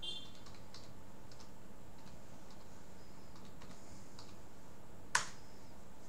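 Faint keystrokes on a computer keyboard as a password is typed at a sudo prompt. One sharper, louder key click comes about five seconds in. A steady low hiss runs underneath.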